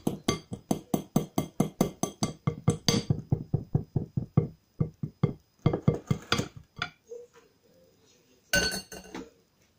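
Fine-mesh sieve sifting flour, its rim tapped quickly against the edge of a glass mixing bowl at about four clinks a second. The taps thin out and stop, and a louder clatter comes near the end.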